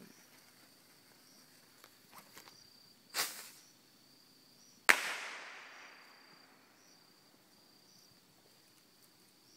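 A firework rushes with a short hiss about three seconds in, then goes off with one sharp bang a little under two seconds later whose echo fades over about a second. A steady high insect trill runs underneath.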